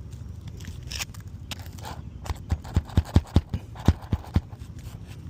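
A hammer driving roofing nails into a replacement asphalt shingle: a quick series of about ten sharp knocks, roughly four a second, starting about two seconds in.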